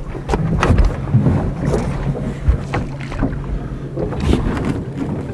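Boat motor idling steadily, with knocks and clatter as the gill net and catch are handled on the boat's metal deck.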